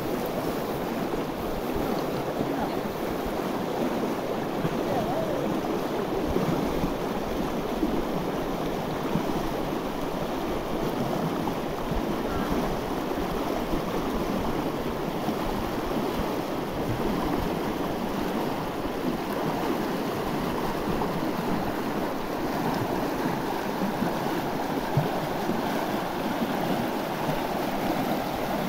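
Shallow, rocky mountain river rushing steadily over stones and small rapids.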